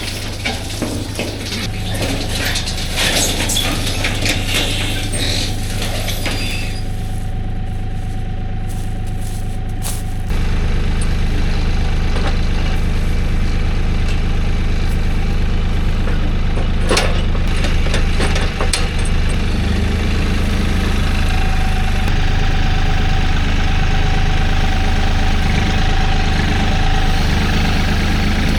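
Engine running steadily, with clattering knocks and clicks over the first ten seconds; about ten seconds in its note shifts and gets louder and steadier.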